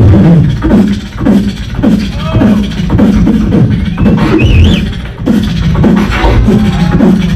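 A beatboxer performing into a handheld microphone: a steady rhythm of vocal drum hits over a bending vocal bassline, with a brief wavering high whistle-like line about four and a half seconds in.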